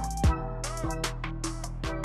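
Background music with an electronic beat: deep kick drums falling in pitch and sharp percussive hits over held tones.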